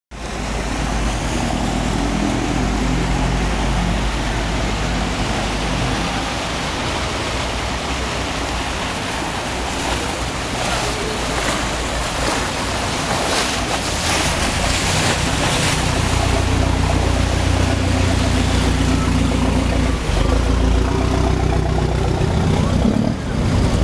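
Boat engines running on open water with waves slapping and churning, a motorboat passing close and a Venetian vaporetto water bus drawing in alongside. The low engine hum grows louder over the second half as the water bus comes close.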